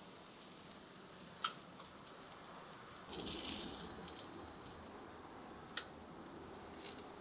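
Chicken shashlik sizzling on skewers over hot charcoal: a steady sizzle with a few sharp pops.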